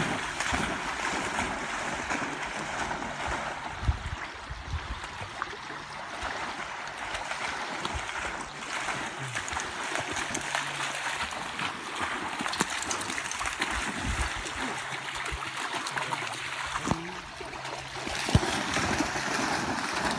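Small choppy waves lapping at a lakeshore, with dogs splashing as they bound and swim through the shallows, and a few sharper splashes.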